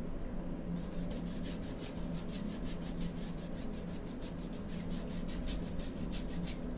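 Paintbrush scrubbing acrylic paint back and forth on a canvas: quick repeated scratchy strokes, several a second, starting about a second in and stopping shortly before the end.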